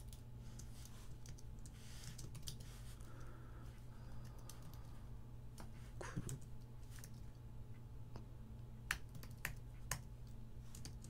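Computer keyboard being typed on: irregular key clicks in short runs, with a few sharper keystrokes near the end, over a faint steady low hum.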